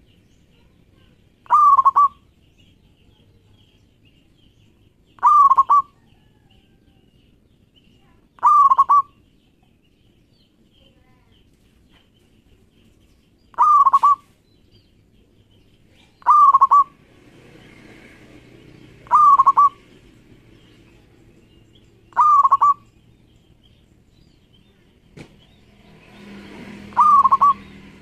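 Zebra dove (perkutut) cooing: eight short, clipped coos every few seconds, each a quick falling note.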